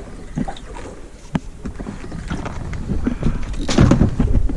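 Wind buffeting the microphone and water moving against a small fishing boat, with scattered sharp clicks and knocks. It gets louder for about half a second near the end.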